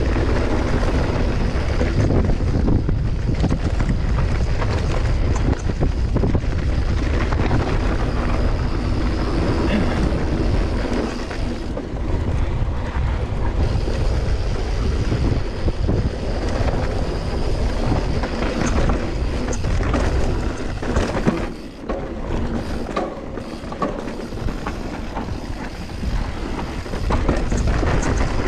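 Mountain bike descending a rough dirt trail at speed: wind rushing over the helmet or chest camera's microphone, with tyre noise and many small knocks and rattles from the bike over the bumps. The rushing eases briefly about three quarters of the way through.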